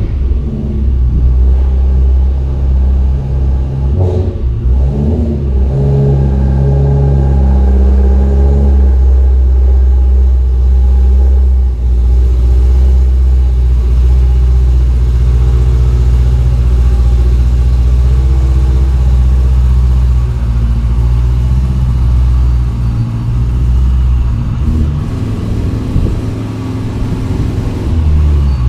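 Supercharged BMW E92 M3's V8 engine running loudly just after start-up. Its revs shift briefly about four to six seconds in, then it settles into a steady idle.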